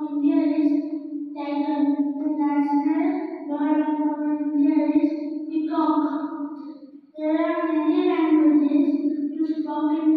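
A child singing into a handheld microphone in long, steady held notes, with a brief pause about seven seconds in.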